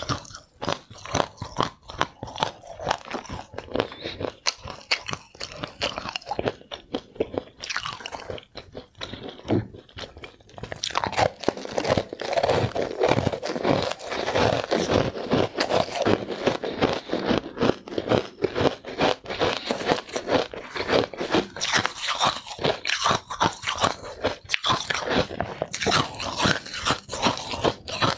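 Ice being bitten and chewed: a fast, continuous run of crisp crunches as teeth break up and grind white balls of frozen ice, getting louder and denser after about ten seconds.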